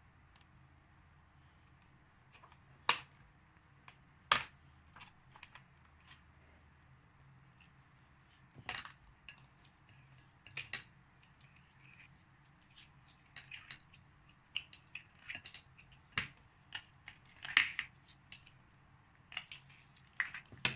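Slime being worked by hand, giving irregular sticky clicks and crackling pops, with two sharper, louder pops a few seconds in.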